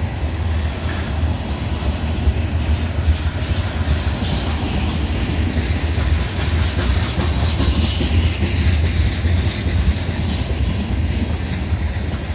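Freight train's tank cars rolling past at close range: a steady low rumble of steel wheels on the rails.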